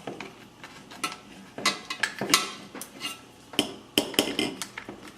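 Irregular clinks and clicks of small tools and hard parts being handled and set down while a hot air rework gun is taken apart.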